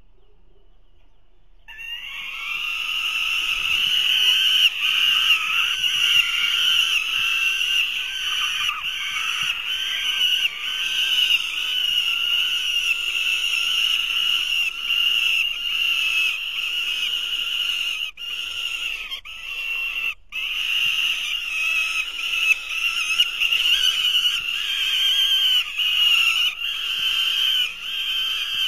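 Falcon nestlings calling for food without a break, a loud chorus of shrill, harsh begging calls that starts suddenly about two seconds in, as an adult feeds them prey at the nest.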